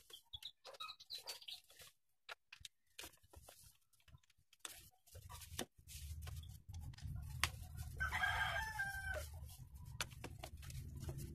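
A rooster crows once about eight seconds in, over a low steady rumble. Before that there are scattered sharp clicks and taps.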